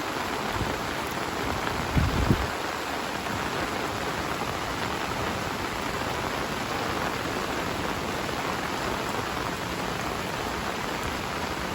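Heavy rain falling steadily, a constant hiss of downpour. A brief low thump comes about two seconds in.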